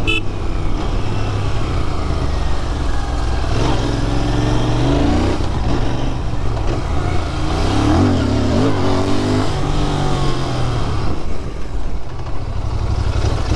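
Café-racer motorcycle engine heard from the saddle while riding: a steady note, then the engine note rises and falls twice, around four and eight seconds in, as the throttle is opened, before settling back to a steady run near the end.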